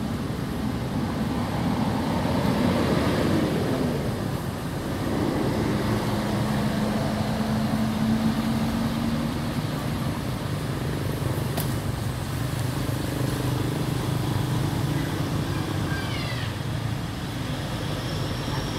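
Motor vehicle traffic: a steady engine drone holding an even low hum through the middle, with a few short high chirps near the end.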